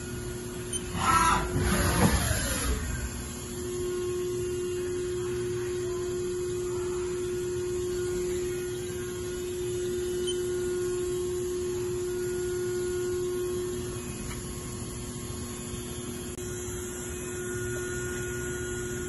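Haas Mini Mill CNC vertical machining center running, with a steady electric hum and whine from its axis drives as the machine is sent to its home position. A brief falling whir comes about one to three seconds in, and the steady whine is louder from about three seconds in until about fourteen seconds in.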